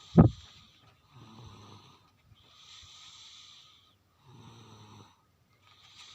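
Snoring in a slow, even rhythm: a rough low snore twice, each followed by a softer airy breath, about three seconds per cycle. A loud short sound comes right at the start.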